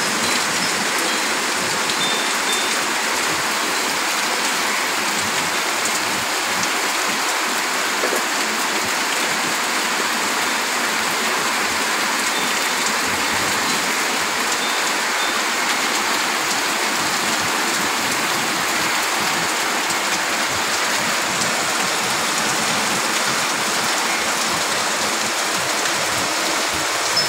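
Monsoon rain pouring steadily: a dense, even hiss of falling water with no letup.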